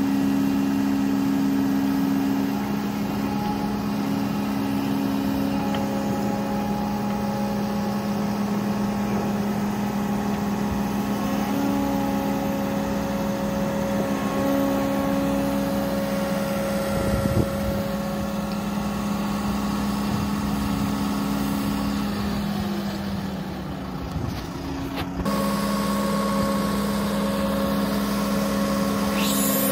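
Menzi Muck M535 spider excavator's diesel engine running steadily under hydraulic load as the machine moves its legs and boom. Near the end the engine note sags for a second or two, then picks back up.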